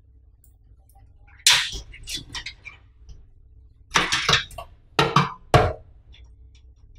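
Power-supply cables and plastic connectors being handled inside a PC case: a sharp clack about a second and a half in, a few lighter clicks after it, and then three quick clusters of knocks and rustles in the second half. A faint low hum runs underneath.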